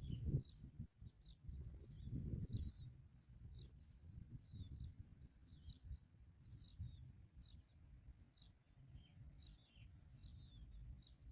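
Faint high chirps of small birds, many short calls in quick succession, over a low rumble.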